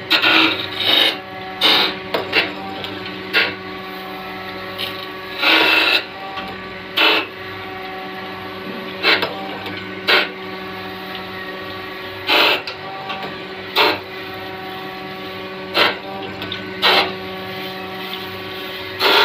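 Cylinder-head facing machine running with a steady motor hum, broken every second or two by short loud bursts of grinding as the cutting wheel passes over the Honda cylinder head's deck face.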